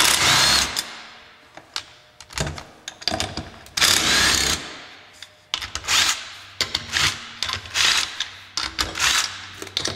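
DeWalt cordless impact wrench hammering in a series of short bursts, spinning out the 3/8-inch head bolts that hold the cover on an ATV's primary drive clutch.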